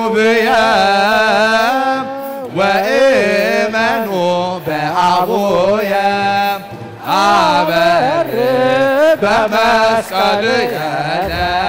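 Choir chanting a wereb, an Ethiopian Orthodox hymn, with long sung notes that glide and waver in pitch over a held lower note.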